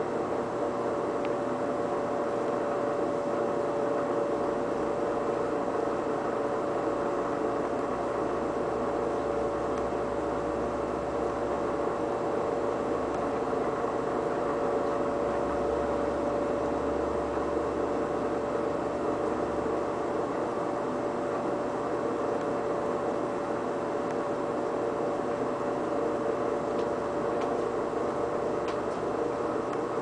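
Air conditioner and electric fan running together: a steady hum with one constant tone over an even whoosh.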